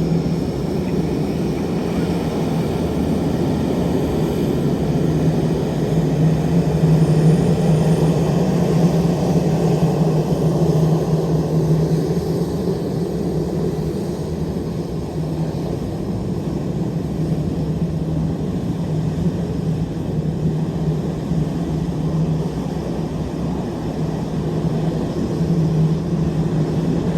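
Airbus A330-900 airliner taxiing, its Rolls-Royce Trent 7000 turbofans running at taxi power: a steady low drone with a hum that grows and eases slightly.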